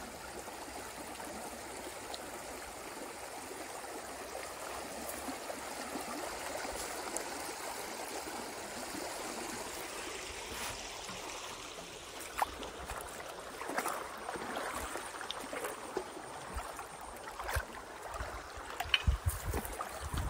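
Shallow river water running over stones and gravel: a steady rushing trickle, with a few short ticks and knocks in the second half.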